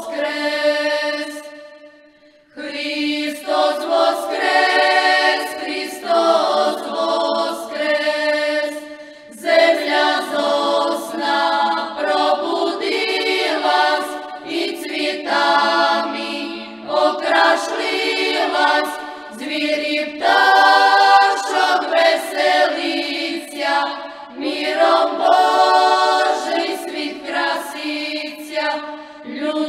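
Choir singing a Paschal hymn a cappella, phrase after phrase, with a short break about two seconds in.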